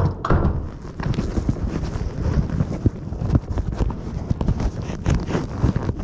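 Irregular knocks and rattles over a steady low rumble on board a Las Vegas Monorail train in motion, with a sharp knock at the start.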